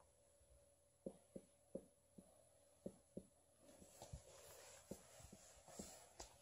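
Faint whiteboard marker writing on a whiteboard: light taps of the felt tip touching down for the first few seconds, then scratchy strokes from about halfway through.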